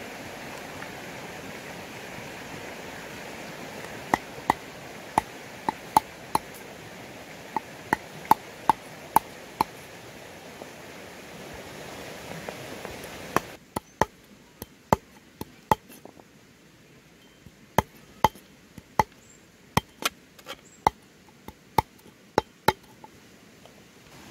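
Knife chopping raw chicken feet on a round wooden chopping board: about thirty sharp strikes at uneven intervals, starting about four seconds in. A steady hiss under the first half drops away suddenly about halfway through.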